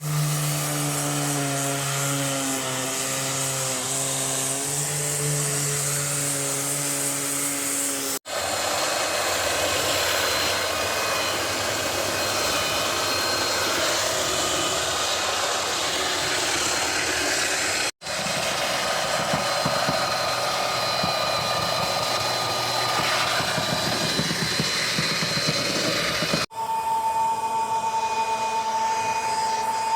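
Power tools and machinery at work on a deck, in four segments joined by sudden cuts. First comes a steady engine-like hum with several pitched tones, then two long stretches of loud rushing noise, then a steady high whine near the end.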